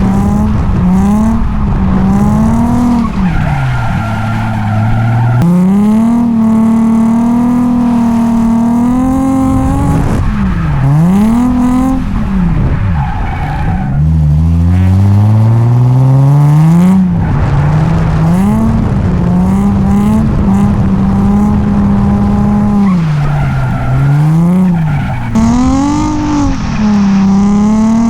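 Nissan 350Z drift car's V6 engine held high in the revs, its pitch dropping and climbing again several times as the throttle is lifted and reapplied, with tyres squealing as the car slides.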